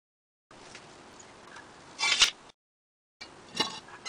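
Rusty steel leaf-spring leaves from a Model T rear spring knocking together on a concrete floor as they are handled: one sharp metal clank about two seconds in and a lighter click near the end, over faint hiss. The sound drops out to dead silence twice.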